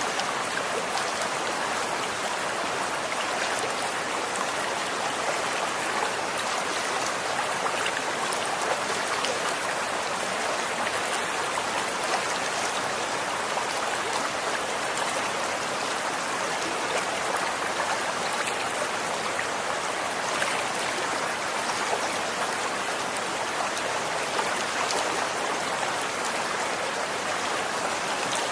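Running water: a stream flowing in a steady, even rush, with small splashing droplets throughout.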